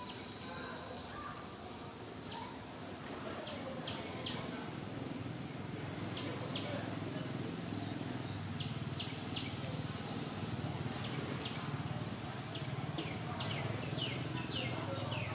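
Steady high-pitched drone of an insect chorus, with short falling chirps that come more often near the end, over a low background rumble.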